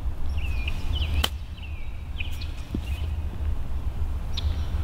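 A golf club striking the ball on a short chip shot: one crisp click about a second in, over a steady low rumble, with short bird chirps around it.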